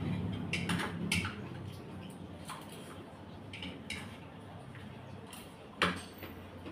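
Chopsticks and a spoon tapping and scraping in a rice bowl: a scatter of light clicks and clinks, with one sharper clink near the end.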